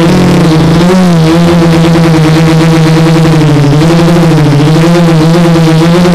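Quadcopter's electric motors and propellers running, heard from the camera on board as a loud, steady buzz. The pitch wavers and dips briefly about a second in and again around four seconds in as the throttle changes.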